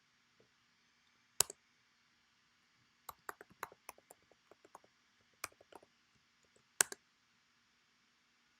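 Typing on a computer keyboard: one sharp key press about a second in, a quick run of keystrokes from about three to six seconds, then a last loud double press near seven seconds.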